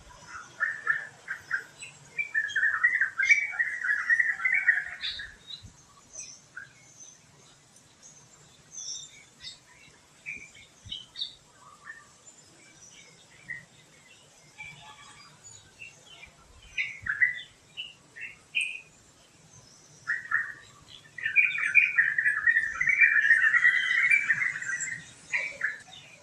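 Birds chirping and calling, with two long bursts of rapid chattering, one a couple of seconds in and one about twenty seconds in. Scattered short chirps fill the gap between.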